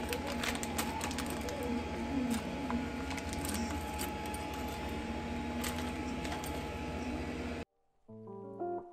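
Scattered small clicks and light clatter of hand tools and hardware being handled, over a steady background hum and hiss. It cuts off suddenly near the end, and a few plucked guitar notes follow.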